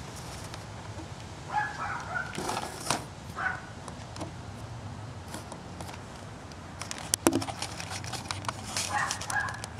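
Scattered clicks and rustles of a handheld camera being moved through foliage, most of them about seven to eight seconds in. A few short pitched calls come from further off, about two seconds in, again at three and a half seconds, and near the end.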